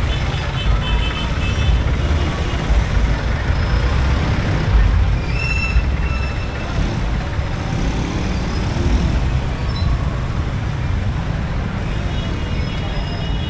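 Street traffic: vehicle engines running and passing, heard as a steady low rumble, with a few faint brief high tones over it.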